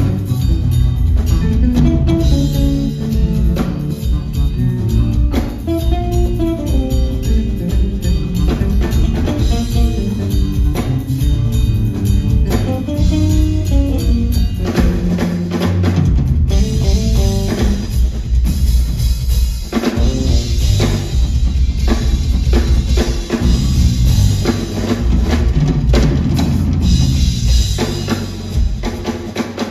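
A live band playing: plucked electric bass lines and a drum kit, heard from the audience. About halfway through the drums and cymbals grow busier and brighter.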